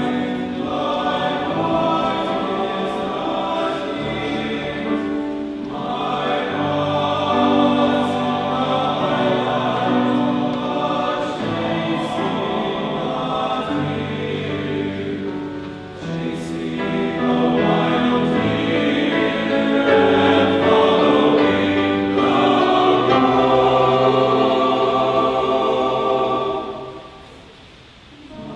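Youth boys' choir singing in parts, holding long notes in phrases, with a brief pause between phrases near the end.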